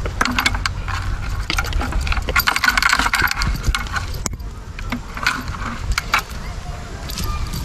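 Mesh bait trap being handled and shaken out over a bucket, its wire frame and netting rattling and clicking in quick irregular knocks.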